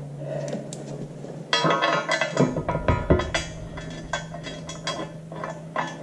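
Metal clinking and tapping as a bolt and lock washer are worked into a thick steel engine rear plate. There are many quick, ringing metallic clicks from about a second and a half in, over a faint steady hum.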